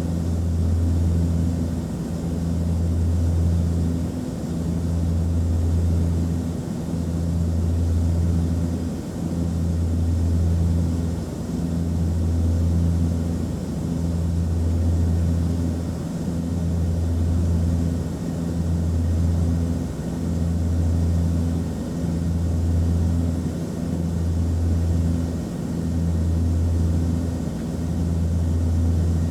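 Cabin drone of an Antonov An-24's twin turboprop engines and propellers in flight: a steady low hum with a deeper throb that swells and fades about every two seconds.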